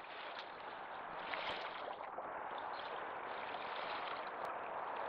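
Steady wash of small waves lapping at the water's edge. It grows louder over the first second and then holds, with a few faint clicks.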